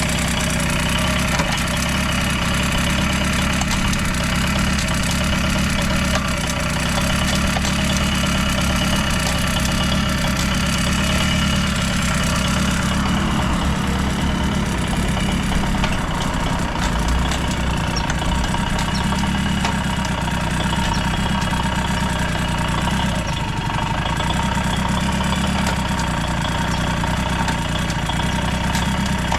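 A Yamaha YB-1's small two-stroke single-cylinder engine idling steadily, running with no abnormal noise.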